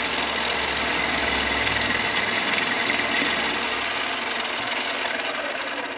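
Mini lathe turning a copper rod: a steady hum from the spindle motor and gearing, with the noise of the tool cutting the copper.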